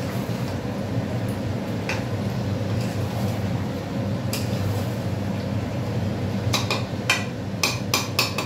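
Metal spatula scraping and clanking against a metal kadai while stirring chicken curry: a few scattered scrapes at first, then a quick run of clanks near the end, over a steady low hum.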